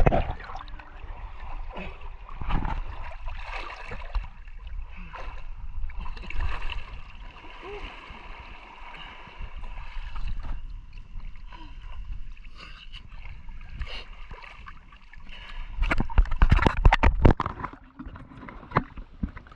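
Shallow sea water sloshing and splashing around a person wading through it, heard close up from a camera held at the water's surface. The splashing gets louder and choppier about three-quarters of the way through.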